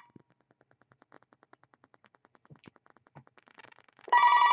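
Telephone ringing: a quiet gap between rings, then the steady electronic ring tone starts again about four seconds in.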